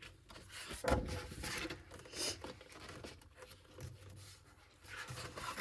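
Paper handling: glossy photo pages and cards rustling as they are leafed through, with a knock about a second in as something is set down.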